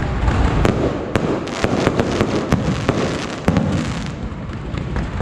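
Fireworks going off in quick succession: many sharp bangs and crackles over a continuous low rumble.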